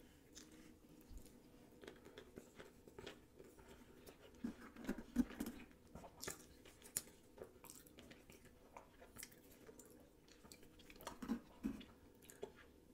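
A person chewing a mouthful of sauce-coated sushi roll close to the microphone: faint, soft wet clicks and smacks, a little louder about halfway through and again near the end.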